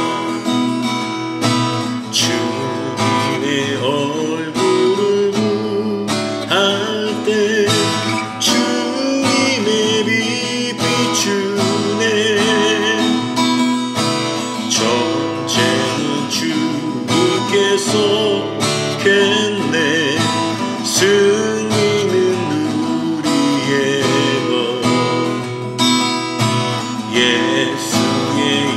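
A worship song on strummed acoustic guitar, with a melody sung over it with vibrato.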